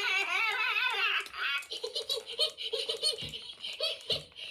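Two Furby toys chattering to each other in high-pitched electronic voices. After about a second and a half they break into a giggle made of short repeated syllables.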